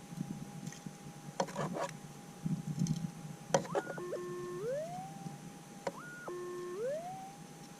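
Minelab GPX 6000 gold detector's audio: a steady tone, then from about halfway a repeating warbling target signal that jumps up in pitch, drops low and glides back up about every three seconds, as the coil passes over a gold nugget. A few short knocks and scrapes sound in between.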